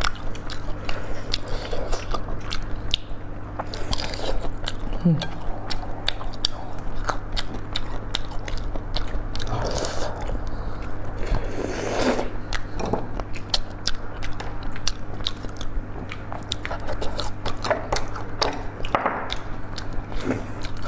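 Close-miked eating: biting and chewing food, with many short sharp clicks.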